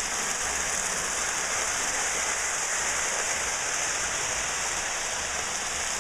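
Lionel electric toy train running steadily around its track: an even rolling hiss with a low hum underneath that swells and fades.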